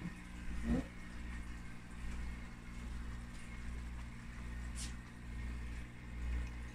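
Steady low electric hum of aquarium equipment such as the tank's pump. A brief rising sound comes under a second in, and a short high tick near the end.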